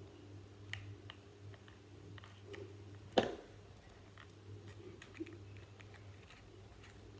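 Faint clicks and paper rustling from hands pressing black paper wheels onto a folded paper car with a glue stick, with one sharp thump on the table about three seconds in. A low steady hum runs underneath.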